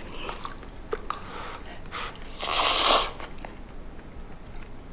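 Eating instant ramen with chopsticks: one loud slurp of noodles about two and a half seconds in, with quiet chewing and small clicks around it.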